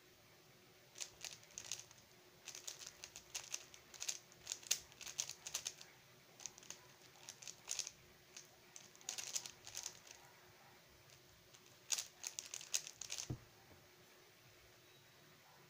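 Stickerless 3x3 speedcube being turned fast during a timed solve: bursts of quick plastic clicking and clacking, with a short pause before a final flurry. The solve ends in a single thump.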